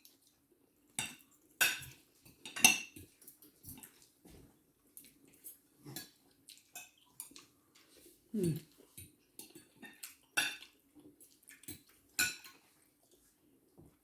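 Cutlery clinking and scraping against bowls and plates during a meal: scattered irregular clicks, the loudest in the first three seconds and again near the end, with a brief low sliding sound just past the middle.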